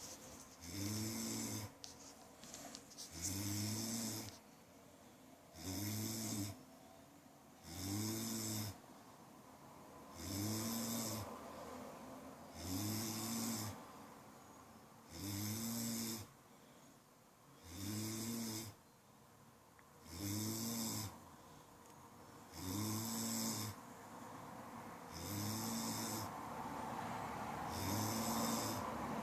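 A person snoring in a steady rhythm, about one snore every two seconds, each a low buzzing rasp with a breathy hiss. A steady background hiss between the snores grows louder near the end.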